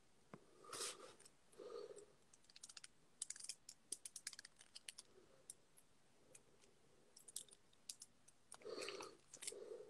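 Faint typing clicks on a device, a quick run about two and a half to five seconds in and a few more near seven to eight seconds, with short low throat sounds about a second in and again near the end.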